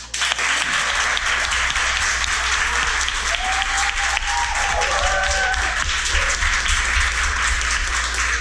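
Classroom audience applauding, a dense, loud clapping that starts abruptly and holds steady throughout.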